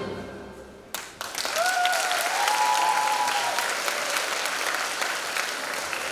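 Dance music fades out, and about a second in a sharp click is followed by audience applause, with a couple of drawn-out cheers over the clapping.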